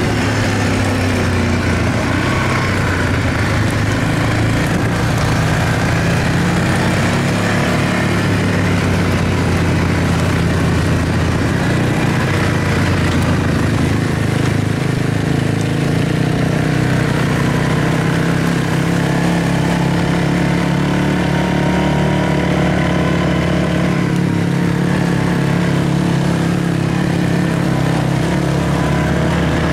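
Quad ATV engine running steadily under way, heard from on board the machine, its note holding fairly even with only small rises and dips in speed.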